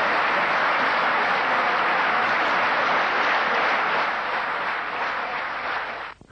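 Audience applauding. The clapping begins to fade about four seconds in, then cuts off abruptly just past six seconds.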